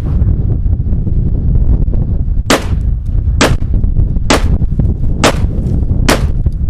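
Benelli M4 semi-automatic 12-gauge shotgun firing five shots, roughly one a second, starting about two and a half seconds in. A steady low rumble of wind on the microphone runs underneath.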